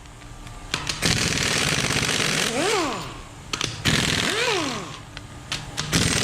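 Power impact wrench hammering in bursts, the longest about two seconds, as it breaks loose the cylinder head bolts on a 5.7L LS1 V8. Between bursts the tool's motor gives a short whine that rises and falls in pitch.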